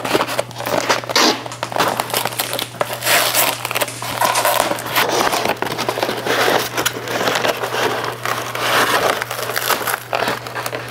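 Kraft-paper shipping tube and paper packing crinkling and rustling, with irregular scrapes and small knocks, as the tube is opened and a paper-sleeved potted plant is slid out of it.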